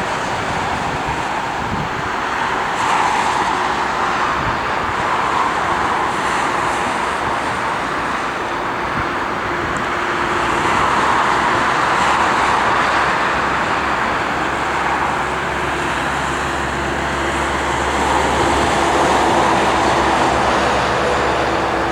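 Boeing 767-300's twin jet engines at take-off power, a steady loud roar that swells and eases slowly, with a faint steady hum beneath it.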